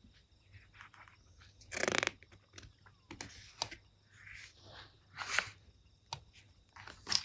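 Paper pages of a picture book handled and turned close to the microphone: scattered soft rustles and crinkles, with a louder rustle about two seconds in and a page turned about five seconds in.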